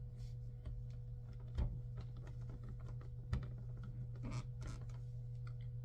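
Handling of a doll as its head is pushed onto the body: two sharp knocks, the second a couple of seconds after the first, then a short rustle, over a steady low hum.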